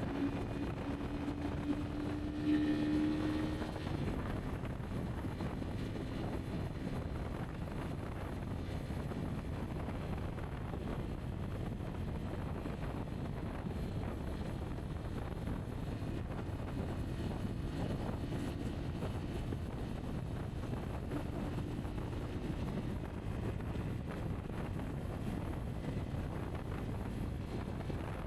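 Rieju Aventura 125 single-cylinder engine running while the motorcycle is ridden off-road, mixed with wind rumble on the microphone. About three seconds in, the engine note rises briefly.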